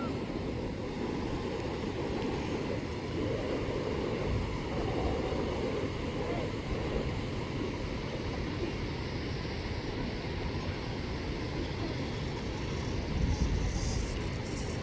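Strong wind blowing across the microphone, a steady low rumble that gusts louder near the end.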